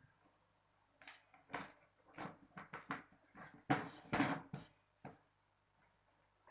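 A run of irregular knocks and clatters, like hard objects being handled and set down, for about four seconds, loudest near the middle.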